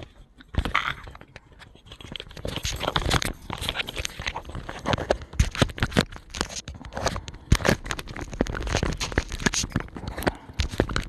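Phone handling noise: fingers rubbing, scraping and knocking against the phone right at its microphone as it is picked up and moved about, a dense crackle of scrapes and sharp clicks.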